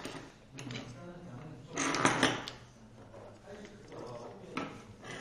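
Handling noise from a scooter hub-motor wheel and its tyre being turned and shifted by hand on a rubber mat: rubbing and light knocks, with a louder scrape about two seconds in.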